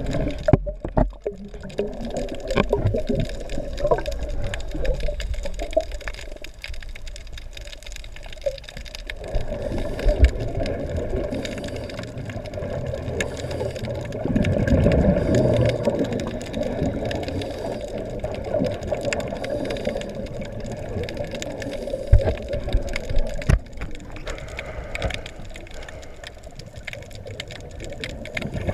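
Scuba divers breathing through their regulators underwater, with exhaled bubbles rushing and gurgling in swells that come and go every few seconds, muffled through the camera's underwater housing. Two sharp knocks come late on.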